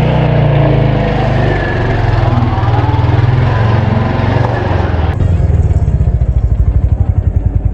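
Royal Enfield Hunter 350's single-cylinder engine running on the move. About five seconds in, the sound changes abruptly to a slow, even thump of the engine idling.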